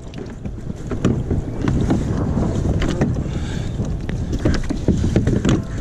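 Wind buffeting the microphone: a heavy, rough low rumble with a few scattered knocks.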